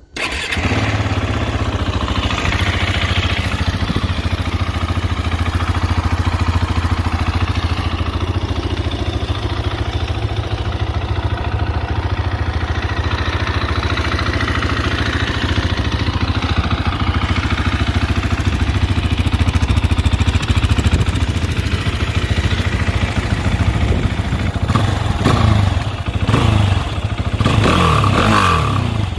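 Husqvarna 701 Supermoto's single-cylinder engine catching at once on the electric starter, then idling steadily. Near the end it is revved with several quick throttle blips that rise and fall back to idle.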